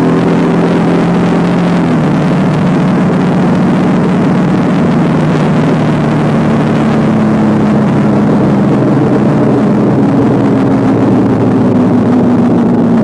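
Motorcycle engine running under way, heard on board over wind and road noise. The engine note drops about two seconds in, holds steady, then climbs again near the end as the bike pulls harder.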